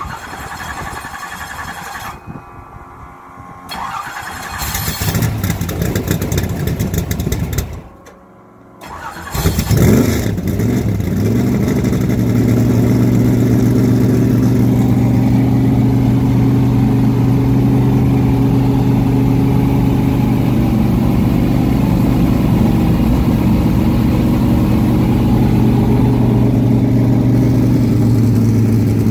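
Cold start of an old race stock car's V8: the starter cranks for a few seconds, there is a brief pause, and then the engine fires with a quick rev about ten seconds in. It settles into a steady, loud idle.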